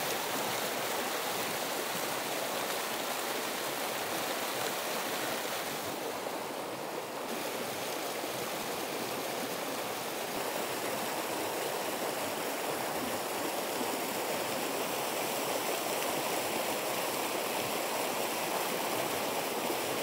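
Shallow mountain stream of snowmelt flowing steadily over rocks between banks of snow and ice.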